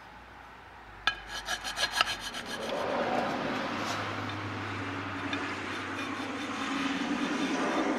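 A small flat file scraping back and forth on the cast aluminium engine case, hand-filing the boost port edge straight. It starts about a second in with a few quick, sharp strokes, then settles into steady, continuous filing.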